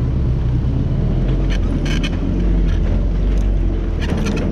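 Off-road 4x4's engine running steadily at low speed as it crawls down a dirt trail, a strong low rumble. Sharp knocks and rattles come through about a second and a half in and again near the end.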